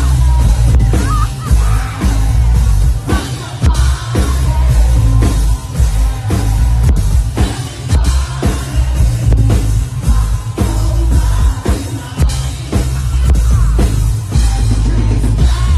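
Loud live rock music: heavy bass and regular drum hits under a singing voice.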